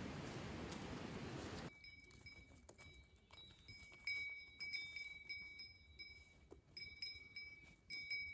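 A steady rushing noise that cuts off suddenly about two seconds in, followed by small bells, like livestock bells, tinkling on and off with light clinks.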